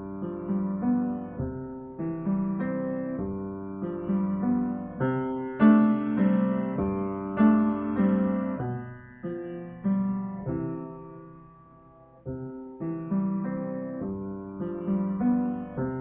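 Piano playing the teacher duet part of a primer-level piano piece in a steady rhythm at quarter note = 100. Two-thirds of the way through a held note dies away to a brief pause before the tune starts again.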